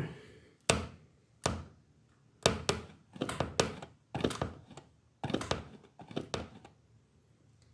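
About a dozen irregular knocks and thunks, as of a door being pushed or jerked against a wedge door stopper that holds it. No siren tone sounds.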